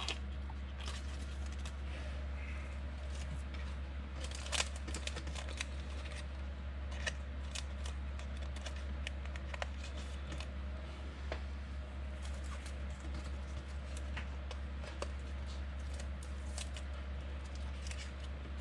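Light clicks and rustles of trading cards being handled and sorted, scattered irregularly, over a steady low hum.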